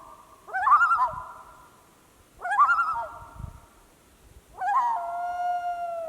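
Repeated drawn-out animal calls. Three begin, about two seconds apart, each rising sharply, wavering, then trailing off; the last is held longer with a slowly falling pitch.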